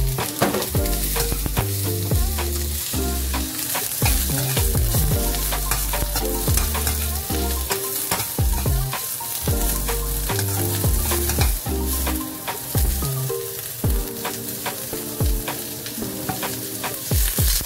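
Sliced red onion and garlic sizzling in oil in a ceramic-coated frying pan, stirred with a metal slotted spatula that scrapes and clicks against the pan. Background music with a low bass line plays throughout.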